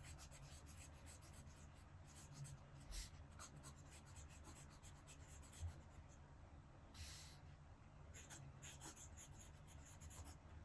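Nahvalur Nautilus fountain pen's double broad nib writing cursive on paper: faint scratching in many short strokes, with one longer stroke about seven seconds in.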